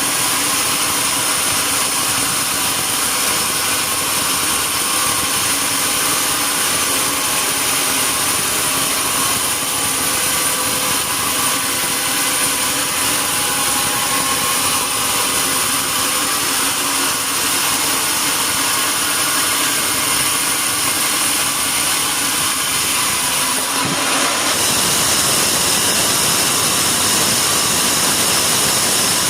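Sawmill machinery running steadily. About 24 seconds in, the sound changes and turns brighter and hissier.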